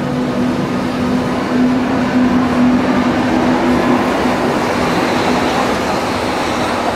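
Berlin U-Bahn train pulling out of an underground station, its wheels and traction motors rumbling along the platform. A steady hum fades out about four seconds in while the higher-pitched running noise builds.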